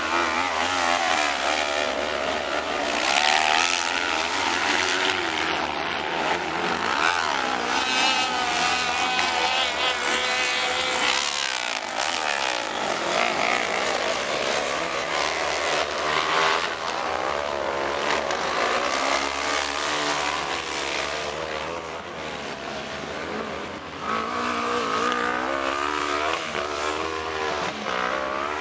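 Several 500 cc kart cross buggies racing on a dirt track, their engines revving and overlapping, pitch rising and falling as each accelerates and lifts off.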